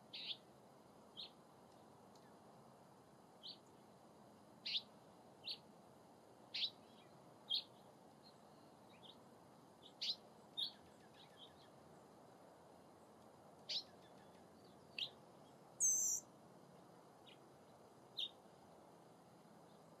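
Black-chinned hummingbirds giving short, sharp chip calls, each note dropping slightly in pitch, one every second or two at irregular intervals. Near the end comes one brief, higher-pitched fluttering call.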